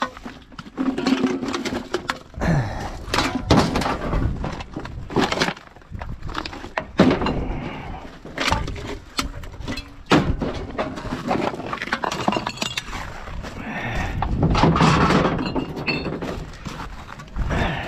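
Rummaging through a wheelie bin: a run of irregular clattering knocks and clinks as items are moved and dropped.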